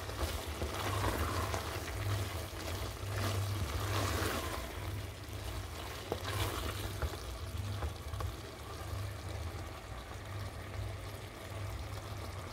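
Wooden spoon stirring a thick pumpkin and coconut sweet that is simmering down in an open pot: wet stirring and sizzling that swell and fade with the strokes, with a click about halfway through, over a steady low hum.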